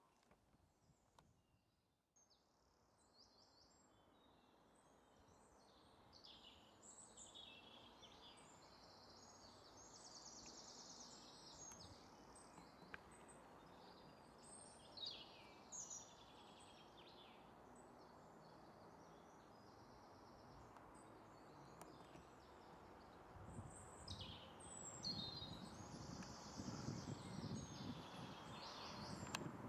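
Woodland birds singing faintly, short repeated phrases and trills over a steady outdoor hiss, with a low rumble of wind on the microphone building in the last few seconds.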